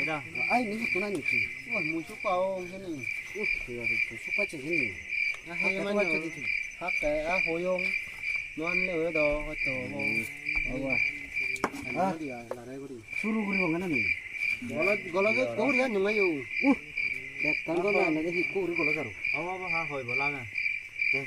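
Crickets chirping in a fast, steady pulsing trill, pausing for about a second a little past halfway through.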